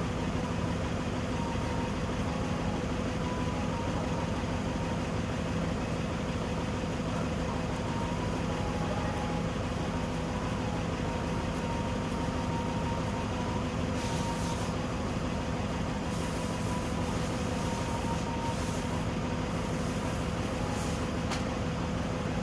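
An engine idling steadily: a constant low hum that does not change, with short hissing sounds coming and going in the second half.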